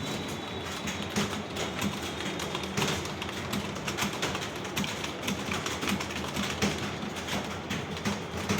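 Several people typing fast on computer keyboards at once: a dense, continuous clatter of keystrokes during a timed typing test.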